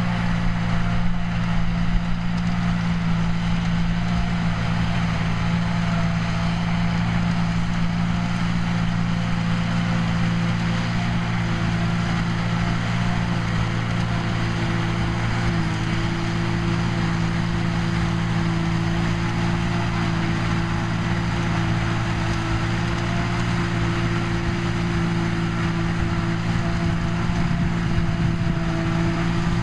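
New Holland tractor diesel engines running under load, with a trailed JF forage harvester chopping grass and blowing it into a silage trailer alongside. The result is a steady drone, with a higher tone that steps up slightly about halfway through.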